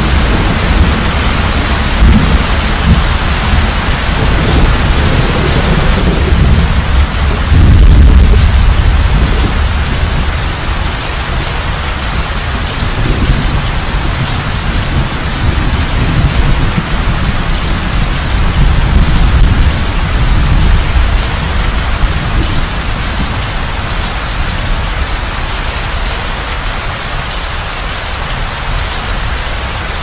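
Steady heavy rain with rolling thunder. The thunder is loudest about eight seconds in and eases off in the second half.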